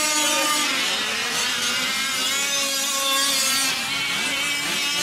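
Several small two-stroke gas engines of 5th-scale RC off-road trucks racing, overlapping one another, their pitch rising and falling as they rev and let off.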